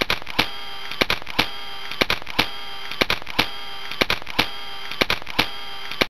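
Intro soundtrack: sharp percussive clicks in a steady rhythm, two a second in a short-long pairing, over a sustained steady tone; it cuts off abruptly at the end.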